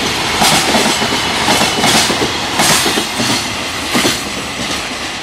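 Freight train's container wagons rolling past, wheels clacking in a regular rhythm over the rail joints over a steady rumble. The sound slowly fades as the end of the train draws away.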